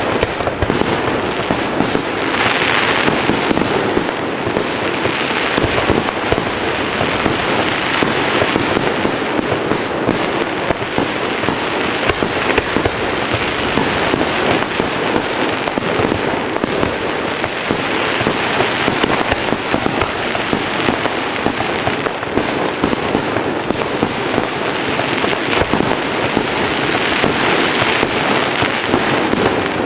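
Fireworks display: a dense, unbroken crackle of many small bursts that keeps going at an even level, with no single big bang standing out.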